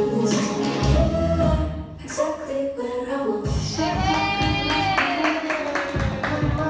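A song with a singer over a low beat; about four seconds in the voice holds one long note that slowly slides down.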